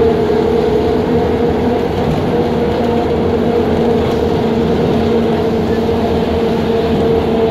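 Ikarus 280 articulated bus running along a street, heard from inside the passenger cabin: a steady engine and drivetrain drone with a constant hum over road rumble.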